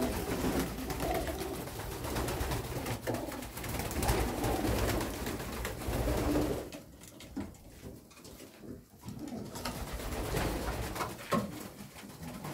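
Domestic pigeons cooing in a loft, a low, wavering coo that goes on for the first six seconds or so, dies down for a couple of seconds and then comes back more faintly, with a few light knocks near the end.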